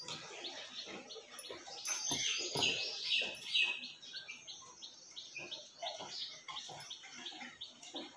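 Bird chirping over and over, a quick string of short high chirps about four or five a second, louder for a couple of seconds near the middle.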